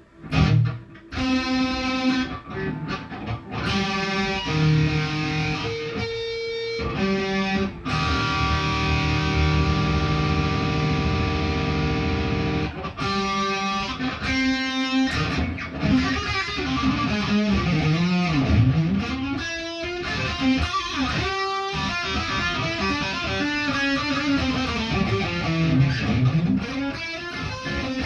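Electric guitar played through distortion: chords and note runs, a chord held for several seconds in the middle, then notes bent up and down in pitch.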